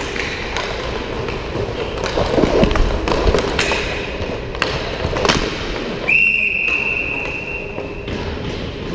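Roller hockey play: sharp clacks of sticks and puck on the rink floor and boards, then a referee's whistle blown once, a single steady high blast about six seconds in that holds for about two seconds, stopping play.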